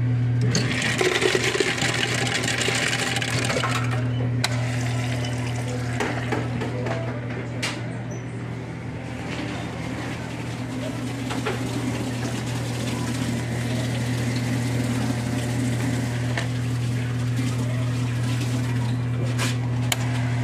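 Indoor store ambience: a steady low electrical hum, with a hissing rush in the first few seconds and scattered clicks and knocks.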